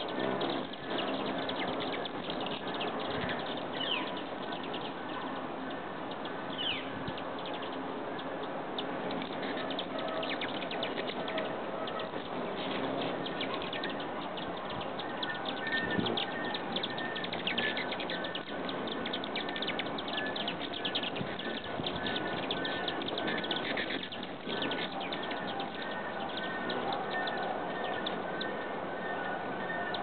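Broad-tailed and rufous hummingbirds hovering and feeding at nectar feeders: a continuous whir of wings with many short, high chirps throughout.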